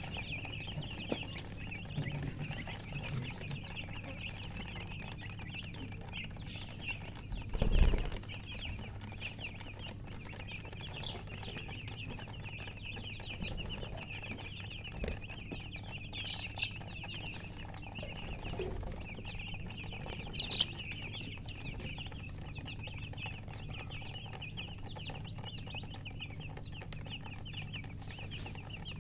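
A brood of newly hatched chicks peeping loudly and continuously, many short high chirps overlapping. A loud thump comes about eight seconds in.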